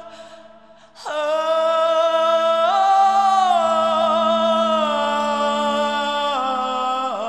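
Background music: long held high notes over a steady low drone. The music dips away just after the start and a new note comes in about a second in.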